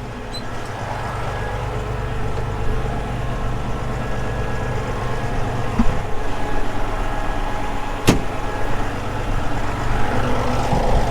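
Challenger MT965C tractor's diesel engine running steadily, with a low thump about six seconds in and a sharp click about eight seconds in.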